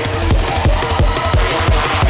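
Electronic dance music with a heavy, regular kick-drum beat, about three beats a second.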